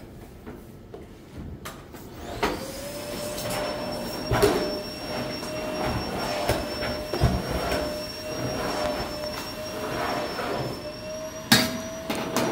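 A small electric motor switches on about two seconds in, spins up and runs steadily with a hum and a high whine, with irregular knocks and clatters over it.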